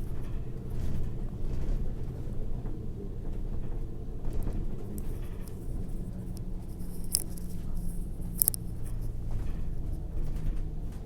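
Steady low rumble of a moving vehicle, with faint rustling and two sharp clicks late on.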